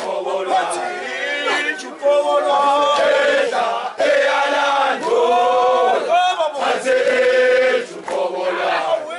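A group of Zulu men chanting an ijadu dance song together in loud phrases of about two seconds each, with short breaks between them.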